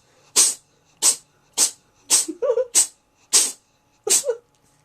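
Cat sneezing in a rapid fit: seven short, sharp sneezes in a row, each under a second apart.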